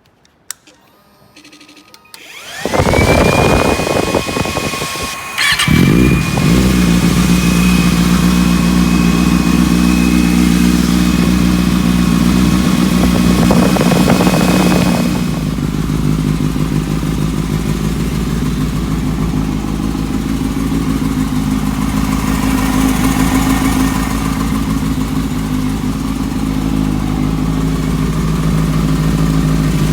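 Motorcycle engine cranking and starting about two seconds in, then idling steadily. A high steady whine runs alongside it until about halfway through.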